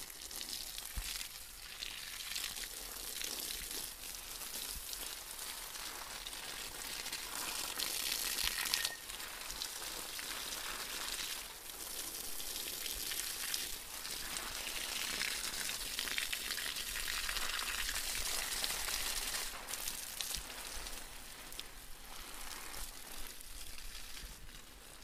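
Kitchen tap running onto plantains and into a stainless steel sink as they are rubbed clean by hand: a steady splashing hiss that swells and eases.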